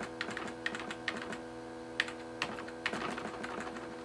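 Computer keyboard keys clicking in an uneven string as the volume key is pressed again and again, over a steady hum.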